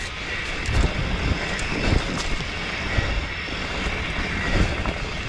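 Trek Stache 7 mountain bike riding a dirt singletrack: tyres rolling over dirt and roots, with irregular low thumps and rattles as the bike hits bumps, under steady wind noise on the microphone.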